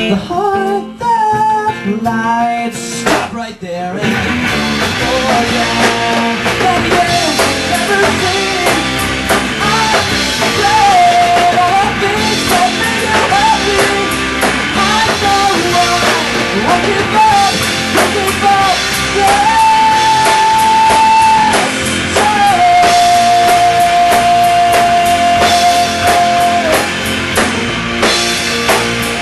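A rock band playing live: singing over guitar, then the full band with drum kit comes in about four seconds in and carries on loud, with two long held notes near the end.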